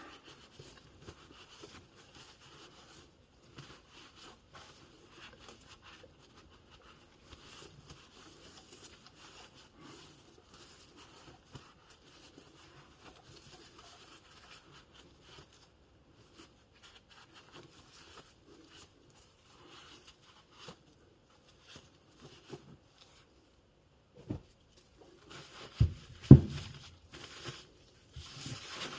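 Faint scattered clicks and rustling of bike parts and tools being handled, with a few loud sharp knocks in the last few seconds.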